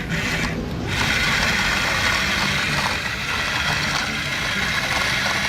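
Toy excavator's electric motor and gears whirring steadily, a high whine over a low hum.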